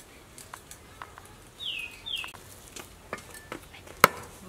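Cleaver chopping snakehead fish on a wooden chopping block: light taps, then one sharp, loud chop about four seconds in. Two short falling chirps sound about halfway through.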